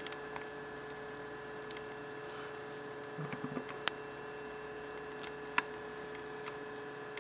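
Quiet room tone with a steady electrical hum, broken by a few faint, short clicks.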